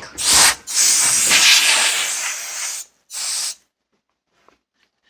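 Compressed air hissing out in three spurts, a short one, a long one of about two seconds, then another short one, as dust is blown out of a computer.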